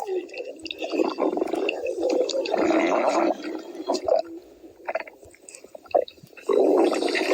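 Cartoon stomach-growling sound effect, loud, signalling hunger, in several long irregular bursts. It dies down for about two seconds after the middle and comes back loud near the end.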